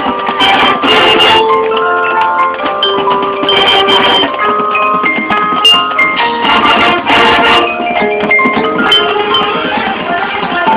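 School band music with mallet percussion, such as marimba and glockenspiel, playing melodic lines among sustained instrument notes, with scattered drum hits.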